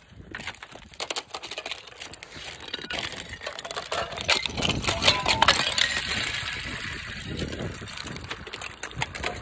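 Thin sheet ice over waterlogged grass cracking and crunching underfoot: a dense run of small cracks and clinks that starts just after the beginning and grows louder towards the middle.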